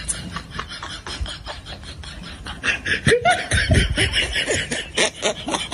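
Laughter in short choppy bursts, getting louder about two and a half seconds in.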